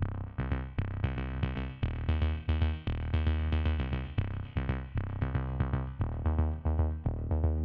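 Electronic background music with a steady drum-machine beat and synthesizer notes.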